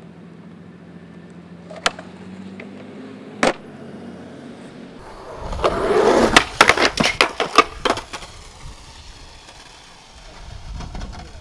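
Skateboard rolling on concrete with two sharp clacks in the first half. About halfway a louder stretch of scraping and rapid clattering of the board and trucks on concrete lasts a couple of seconds, then dies away.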